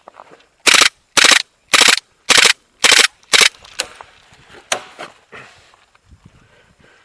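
Airsoft gun firing six loud shots in quick succession, about two a second, followed by a few fainter pops.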